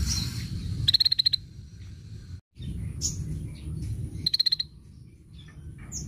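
Cucak matahari songbird calling: two fast rattling bursts of about eight notes each, about a second in and again about four seconds in, with a few short high chirps in between and after. A steady low rumble runs underneath.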